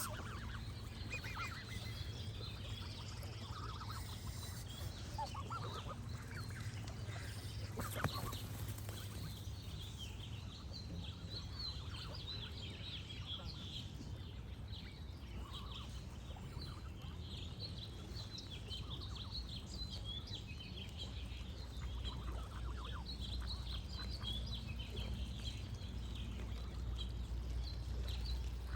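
Geese honking now and then over steady, busy birdsong and a low, gentle rush of water. There is a single sharp tap about eight seconds in.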